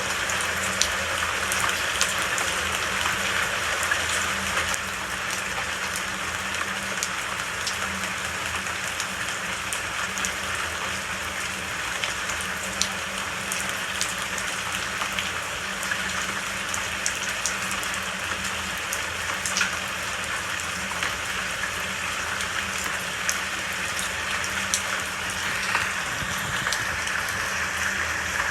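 Steady rain falling, an even hiss with many sharp single drop ticks scattered through it.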